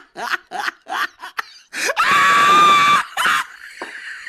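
A person laughing in short, rapid bursts, then a loud, high-pitched scream lasting about a second, starting about two seconds in.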